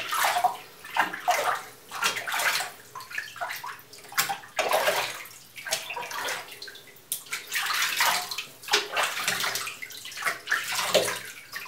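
Bathwater in a full tub sloshing and splashing in irregular bursts as a cat paddles in it, held by a person's hands.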